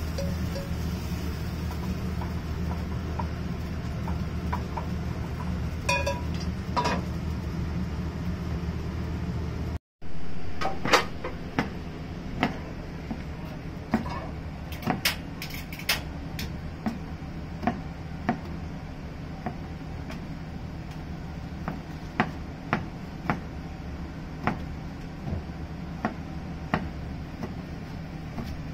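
Kitchen clatter of dishes, glasses and cutlery clinking and knocking over a steady low hum. After a short break about ten seconds in, the hum is quieter and scattered sharp clinks and taps come every second or so.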